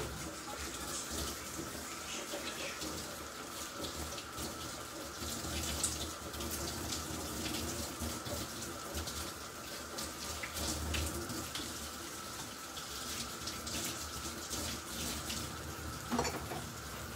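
Kitchen tap running in a steady rush with a faint whine, shut off with a click about a second before the end.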